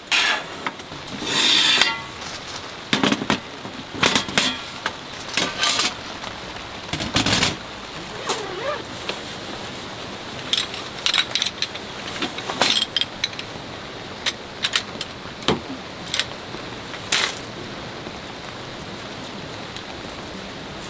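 Steady rain hiss under a run of irregular metallic and glassy clinks, knocks and rattles. The clinks are busiest in the first eight seconds and have died away in the last few seconds.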